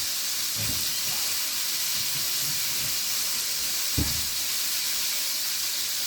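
Chicken wings deep-frying in hot oil, a steady high sizzle. A single knock about four seconds in.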